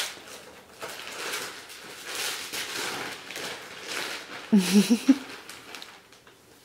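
Wrapping paper rustling and crinkling as a gift-wrapped vinyl record album is unwrapped. About two-thirds of the way in there is a short vocal sound, the loudest moment.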